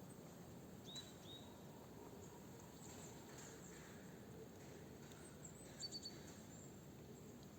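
Small birds chirping faintly over quiet outdoor air: two short high chirps about a second in, then a quick run of three chirps about six seconds in.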